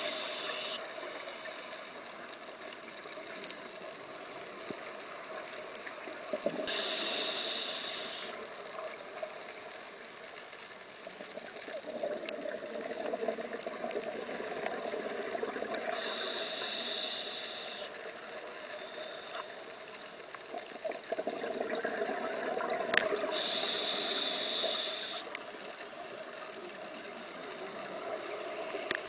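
A scuba diver breathing through a regulator underwater. Three loud rushes of exhaled bubbles, each lasting about two seconds and coming roughly eight seconds apart, with a quieter steady hiss in between.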